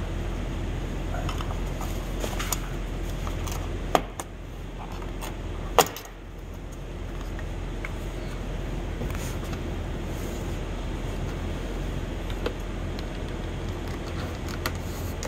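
Small plastic clicks and knocks from car door trim and blind parts being handled and unclipped, with two sharp snaps about four and six seconds in, over a steady low hum.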